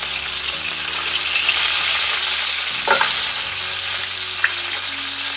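Smoked duck breast searing in hot oil in a pan: a steady sizzle, with one sharp knock about three seconds in.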